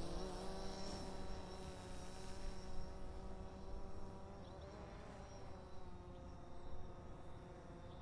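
A drone's propellers buzzing with a steady pitched hum that slowly fades as the drone flies away.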